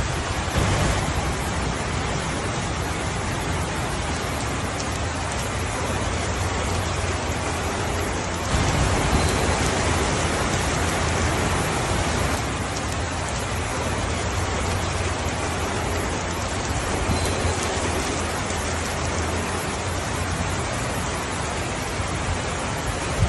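Steady rainfall, an even hiss with a low rumble beneath it, getting a little louder about eight seconds in.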